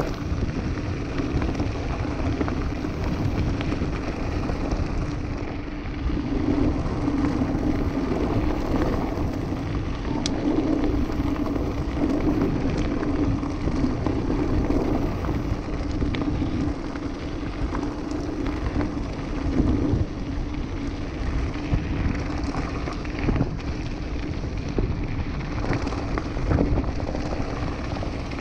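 Mountain bike rolling over a loose gravel and rock trail: a steady noise of tyres crunching and the bike rattling, with small knocks throughout.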